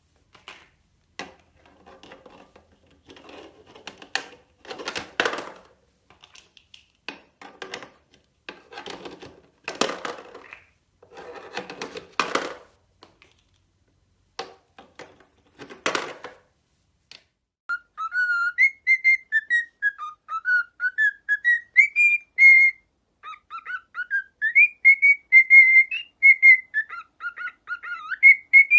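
A series of short, irregular scratchy bursts, then from about halfway in a pet parrot whistling a warbling tune that glides up and down in pitch.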